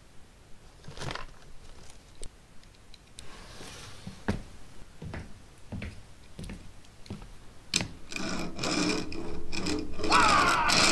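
Soft, sharp clicks at irregular spacing, about one a second. About eight seconds in, a louder, denser mechanical rattling takes over, and guitar music starts near the end.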